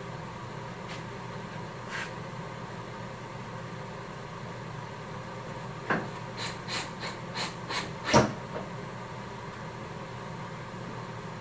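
Sharp clicks and knocks of wood and tools being handled over a steady low hum: a knock, then a quick run of about six clicks, then a single loud knock about eight seconds in.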